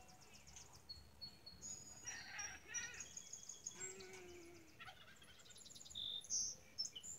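Birds chirping, trilling and whistling in quick, high calls, with one longer, lower call about four seconds in.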